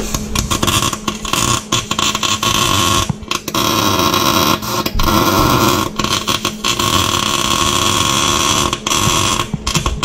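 Electric arc welding on a differential's spider gears, welding them together to lock the rear end. A steady, loud crackling hiss comes in runs of a second or more, broken by several brief stops as the welder starts and stops the bead.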